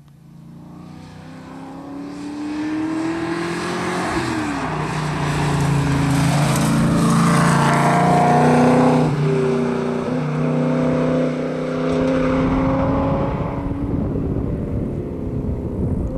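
A classic rally car's engine under hard acceleration as it approaches and passes below, the pitch climbing with two upshifts, about four seconds in and again about nine seconds in, and the sound echoing off the rock faces beside the road. It is loudest at about eight to nine seconds.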